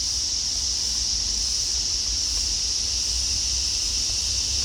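Steady high-pitched hiss with a low rumble underneath, unchanging background noise with no distinct event.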